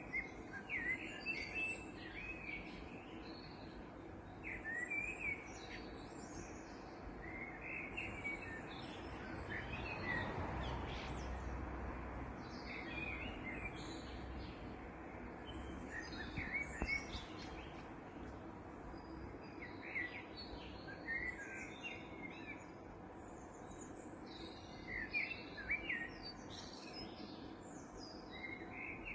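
Songbirds chirping and calling, with short high chirps coming every second or two over a steady low background noise. A broad rushing noise swells and fades about ten seconds in.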